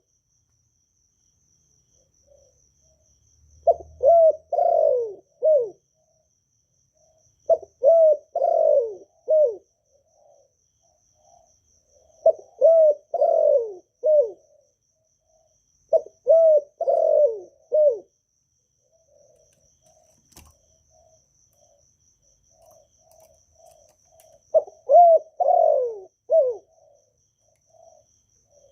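Spotted dove cooing: five phrases of three or four falling coos each, repeated about every four seconds, with a longer pause before the last phrase.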